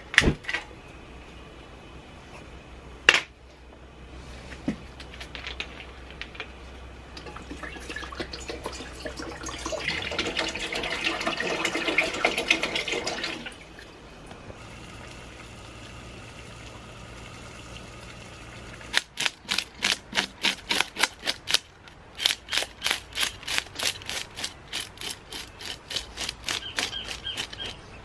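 Water poured into a stainless steel pot for about five seconds, filling up, after a single sharp click near the start. From about two-thirds of the way in, a knife scrapes scales off a snapper in quick, even strokes, about two or three a second.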